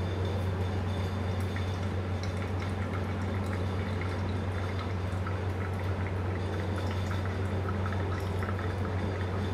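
Thin stream of hot water pouring from a gooseneck kettle onto wet coffee grounds in a V60 paper filter, with a light, irregular patter of splashes: the main pour of a pour-over brew after the bloom. A steady low hum runs underneath.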